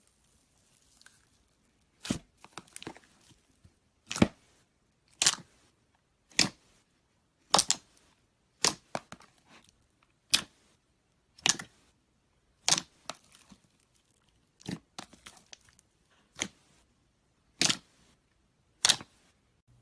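Slime being worked by hand, giving sharp pops about once a second, some followed by small crackles, as air pockets burst.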